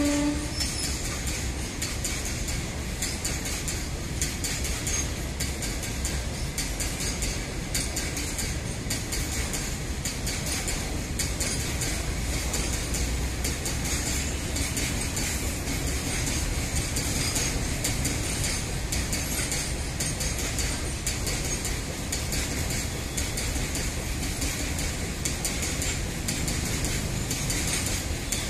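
A long goods train of covered hopper wagons rolling steadily past close by: an even rumble and rattle of wheels and bogies on the rails, with quick clicks running through it.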